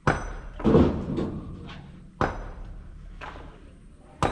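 Hand tool knocking and tapping on metal in an excavator diesel engine's open cylinder head during injector work: a series of sharp, irregular metallic knocks, several loud and a few lighter, each ringing briefly.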